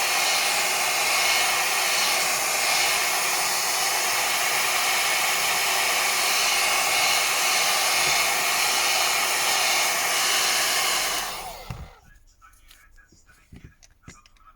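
Hot-air blower running steadily, heating the phone's back glass to soften its adhesive. It is switched off about eleven seconds in and dies away over about a second, leaving only a few faint clicks and taps.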